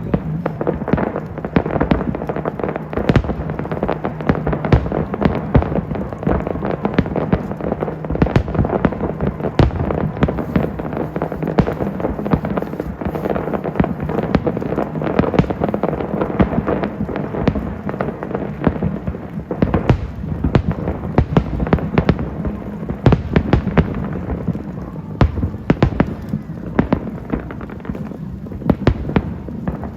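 Fireworks display: a continuous barrage of firework bangs and crackles, several a second, with no break.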